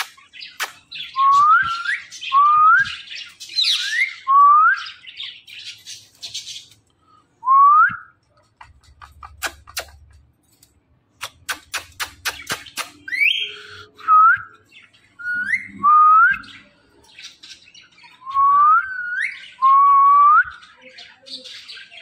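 Indian ringneck parrot whistling: a short rising whistle repeated about a dozen times at uneven intervals, with a few sharp clicks midway.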